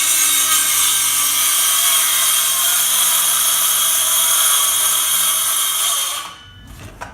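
Cordless Ryobi circular saw running through a cut in a board, a steady, loud whine and rasp, that stops about six seconds in as the cut finishes.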